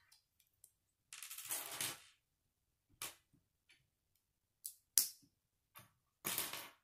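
Loose plastic K'nex pieces rattling as a hand rummages through the pile, then a few sharp plastic clicks as a rod is snapped into a connector. The loudest click comes about five seconds in, and another rattle of pieces follows near the end.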